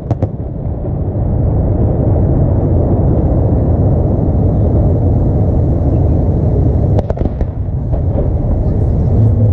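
Fireworks display: sharp reports of aerial shells bursting at the start, then a long low rumble, with a few more sharp bangs about seven seconds in.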